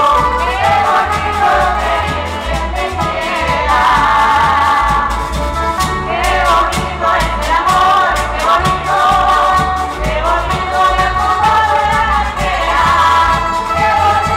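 Canarian parranda folk group playing: several voices singing together over strummed guitars and other small plucked string instruments, with a drum keeping a steady beat.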